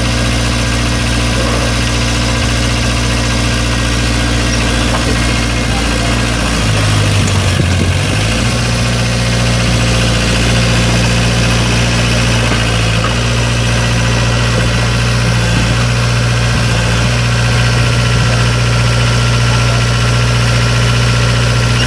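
Small crawler dozer's engine running steadily as the machine travels. About seven seconds in, the engine note drops lower for a second or two, then recovers.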